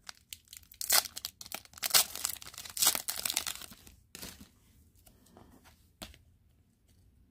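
Wrapper of a hockey card pack torn open and crinkled: crackly rustling in irregular bursts for about four seconds, then fainter rustles.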